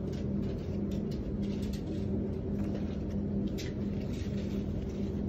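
A steady low machine hum with a droning tone, and a few faint rustles and clicks from handling the fabric samples and folder pages.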